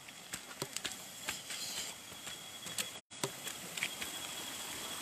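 A steady high insect drone, with irregular crackles and clicks over it. The sound cuts out for a moment about three seconds in.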